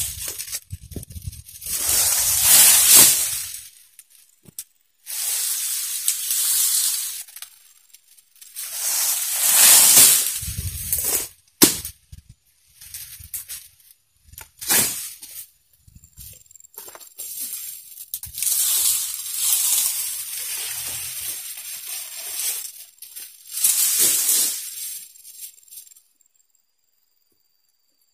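Dry oil palm fronds rustling and swishing as they are pruned, dragged and laid down, in a series of hissing bursts a second or two long, with a couple of sharp snaps near the middle.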